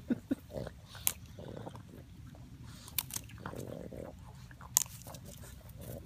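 Boston Terrier puppy biting and chewing on a stick of bamboo: irregular sharp cracks and crunches, a few seconds apart, with softer gnawing between them.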